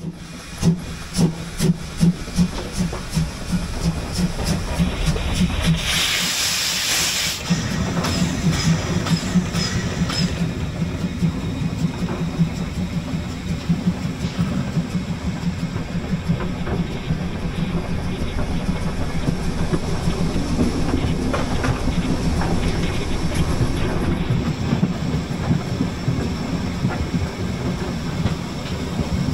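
Narrow-gauge steam locomotive hauling a train: rhythmic exhaust chuffs over rail clatter. A loud hiss of steam comes about six seconds in and lasts a second or two, then the locomotive runs on steadily.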